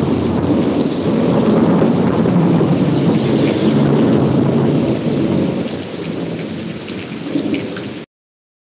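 Rolling thunder rumbling over steady heavy rain, loudest in the first few seconds and dying away after about five seconds. The sound cuts off abruptly near the end.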